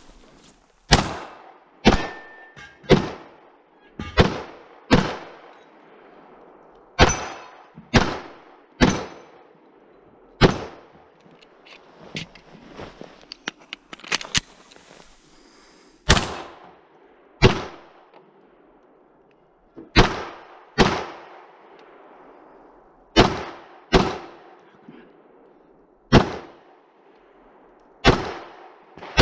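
Glock pistol fired in single shots, about seventeen in all. They come in runs roughly a second apart, with longer pauses between runs, and each shot echoes briefly.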